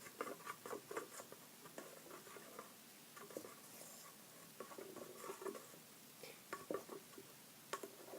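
Faint, irregular small clicks and squishes of glue-and-borax slime being worked in a cup, the mixture still gluey and not yet set.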